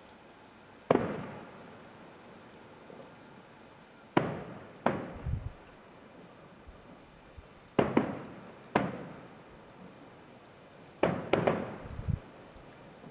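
Distant fireworks display: aerial shells bursting as about eight sharp bangs at irregular intervals, some in quick pairs, each trailing off in a long rolling echo.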